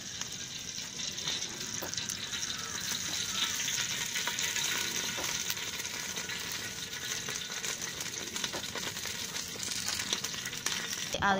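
Coconut oil sizzling and crackling with many small pops as it heats in a hot aluminium pot. The sizzle stops abruptly near the end.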